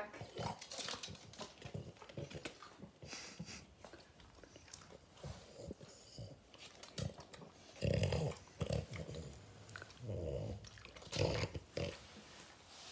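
French bulldog eating pasta close to the microphone: small wet chewing and mouth clicks, with a few louder, short low grunts from the dog about eight seconds in and again around ten and eleven seconds.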